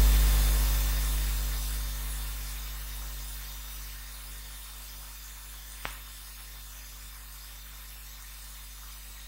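Recording background noise: a deep rumble that fades steadily over the first four seconds, steady hiss with a faint hum, and a single sharp click about six seconds in.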